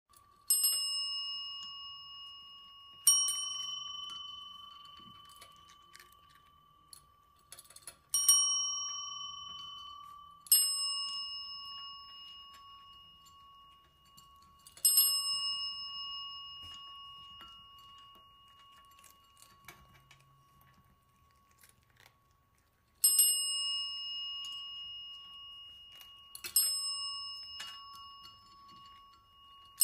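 Chrome desk service bells struck by cats' paws, ringing about seven times at uneven intervals. Each strike is a bright ding that rings on and slowly fades. The cats are ringing the bells to ask for food.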